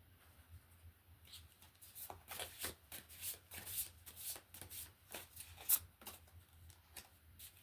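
A deck of reading cards being shuffled by hand: a quick run of soft papery strokes starting about a second in and going on for several seconds.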